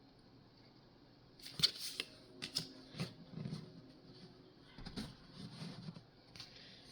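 Pokémon trading cards being handled and slid over one another in the hands, a run of light clicks and rustles starting about a second and a half in.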